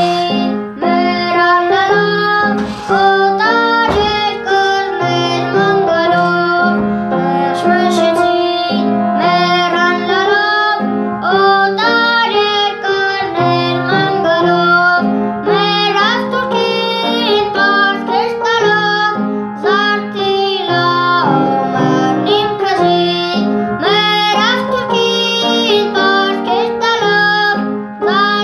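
A boy singing a song, with an instrumental accompaniment of held chords under the melody.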